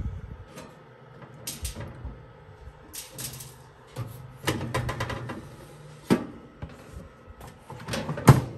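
Clicks, knocks and light metal clatter as corn dogs are placed in the wire mesh basket of a countertop air fryer oven and the rack is handled, with the loudest knock near the end. A low hum comes and goes beneath it.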